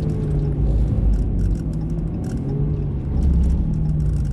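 Steady low engine and road drone heard inside a pickup truck's cab cruising at highway speed.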